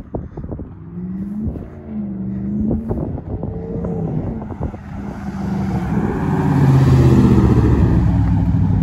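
2019 Ram 1500 Laramie pickup with its muffler and resonator deleted, its straight-through exhaust rising and falling in pitch as the throttle is blipped, then growing steadily louder as the truck drives up close.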